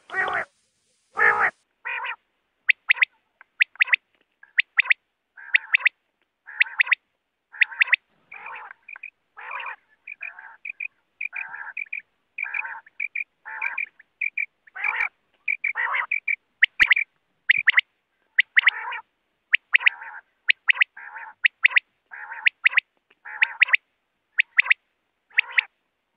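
Quail calling over and over: short, raspy calls, one or two a second, some in quick pairs, with clean silence between them. This is the quail call used to lure birds into nets.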